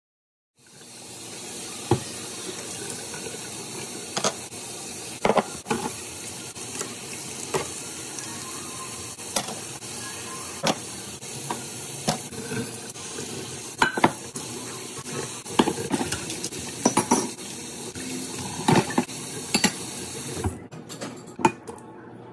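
Kitchen tap running into a stainless steel sink while dishes, cutlery and a frying pan are washed by hand, with frequent sharp clinks and knocks of crockery and metal. The water's rush drops away near the end.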